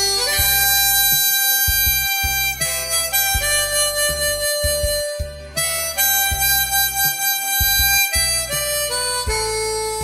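Harmonica playing a slow melody of long held notes over an instrumental backing track with a pulsing bass line.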